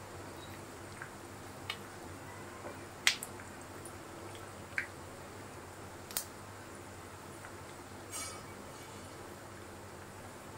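Beef kababs shallow-frying in hot oil as they brown: a steady low sizzle with scattered sharp pops of spitting oil, the loudest about three seconds in, and a short crackle near the end.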